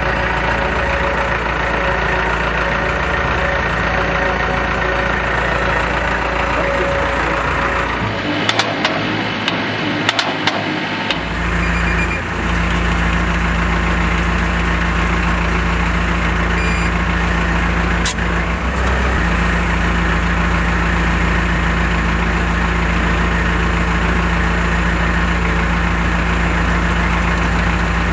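Engine of a self-loading concrete mixer running steadily at idle. About eight seconds in the deep hum drops away for a few seconds while several sharp clicks sound, then the engine hum returns.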